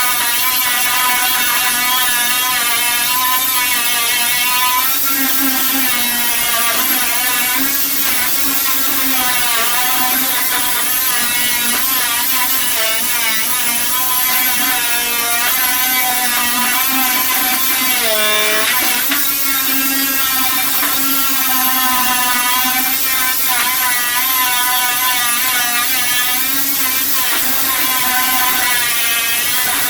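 Hand-held electric power tool running continuously under varying load, its motor pitch sagging and recovering over and over as it is pressed into the work, with one deeper bog-down about two-thirds of the way through.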